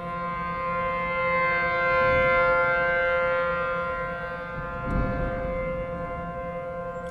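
ACA P-10 rotating outdoor warning siren sounding its steady alert tone. The pitch holds level while the loudness swells to a peak about two seconds in and then fades as the rotating head sweeps past.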